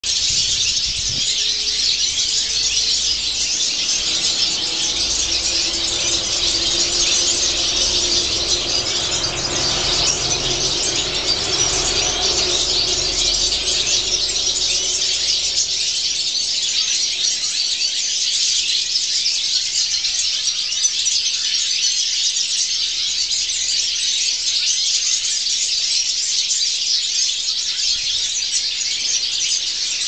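A large flock of small aviary birds chirping all at once: a dense, continuous chorus of high-pitched chirps with no pauses.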